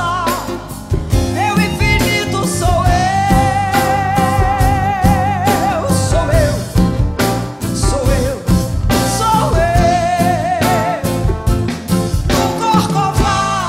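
Live band music: bass guitar, drum kit and hand percussion playing an instrumental passage, over which a long wavering melodic line is held twice, with vibrato.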